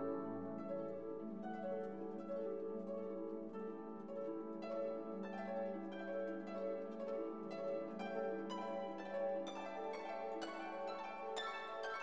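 Instrumental background music: plucked notes over held tones, the plucked notes coming thicker in the last few seconds.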